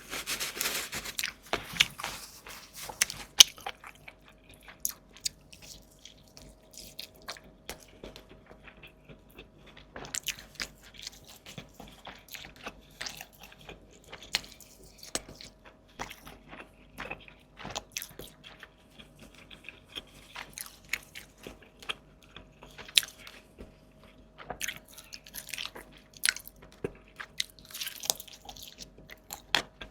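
Close-miked eating sounds: a person biting and chewing food, with wet smacks and occasional crunches coming at an irregular pace.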